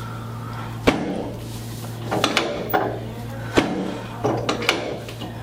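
Chiropractic drop-table sections clunking down under adjustment thrusts. There is a single sharp knock about a second in, then a run of knocks through the middle and a quick three near the end.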